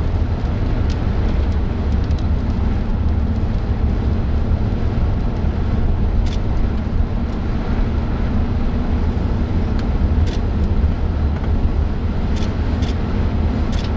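Strong wind buffeting the microphone: a steady, loud low rumble that surges unevenly, with a faint hum underneath and a few light clicks.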